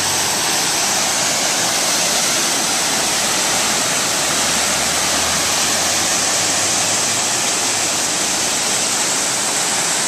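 Waterfall and the fast, muddy torrent below it rushing in a steady, unbroken hiss of white water.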